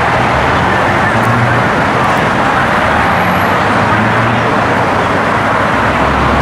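Steady, loud rushing noise with no rhythm or distinct events, even throughout.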